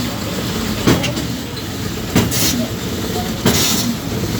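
Septic siphoning truck's suction pump running steadily with a low rumble. A sharp knock comes about every second and a quarter, and short bursts of hiss come twice.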